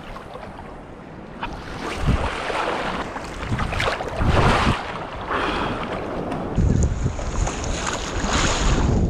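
Sea waves sloshing and splashing against a person wading in the surf, in several surges, one splashing right over the camera about four seconds in. Wind rumbles on the microphone throughout.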